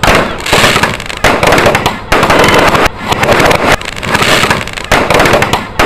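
Fireworks display: dense, loud crackling and popping of firecrackers and aerial shells, broken by sudden jumps about once a second as if cut into short pieces.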